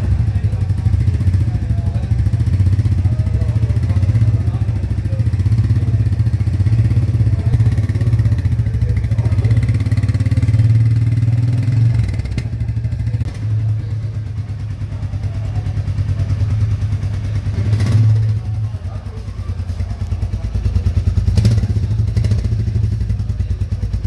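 Royal Enfield Meteor 350's single-cylinder engine running at low revs, its exhaust giving a steady low, fast-pulsing beat with a few brief swells.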